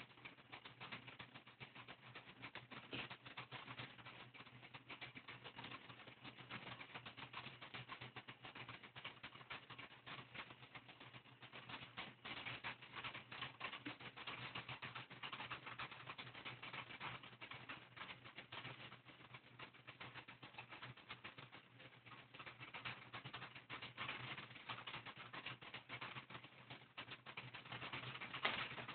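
Window-blind cords and slats clicking and rattling in faint, quick, irregular taps as a cat bats at the strings.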